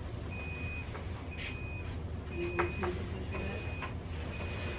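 Hospital equipment alarm beeping steadily: one even, high-pitched beep about once a second, each about half a second long, over a low steady hum.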